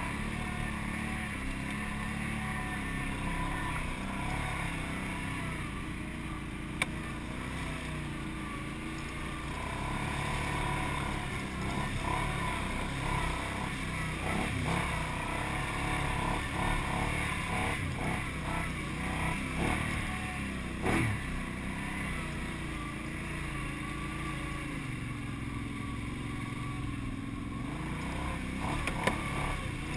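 ATV engine running as the quad is ridden over a muddy trail, its revs rising and falling, with a sharp click about seven seconds in.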